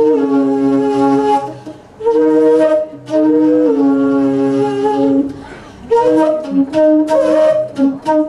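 Live jazz: a C flute and a saxophone play the tune in long held notes, moving to shorter, quicker notes in the last two or three seconds, over bass and drums.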